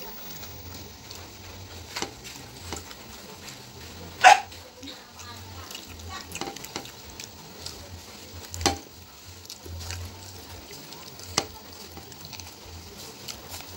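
Eating sounds: soft crackles and small clicks of fingers tearing crispy fried chicken and picking rice off a plate. The loudest is a short, sharper sound about four seconds in, with a few more sharp clicks later.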